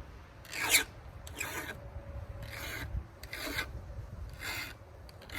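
Hand file stroking across the teeth of a chainsaw chain clamped in a stump vise: about five separate rasping strokes, roughly one a second, the first the loudest. The chain is being sharpened because it had gone dull and was struggling to cut soft pine.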